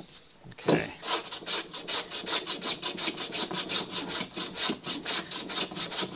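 Small hand plane taking quick short strokes across the end of a plywood plank, about five a second, starting about a second in: bevelling a scarf joint down toward a feather edge.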